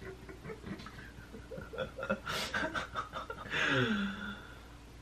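Stifled giggling and chuckling in short pulses, rising to a louder laugh about three and a half seconds in that slides down in pitch.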